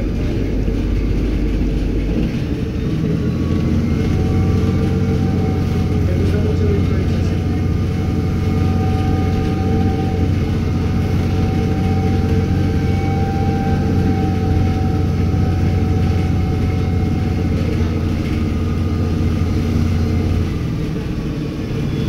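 Mercedes-Benz O-500U city bus's diesel engine pulling away: the engine note rises about two seconds in and holds steady under way, with a fainter higher whine over the drone, then eases off near the end.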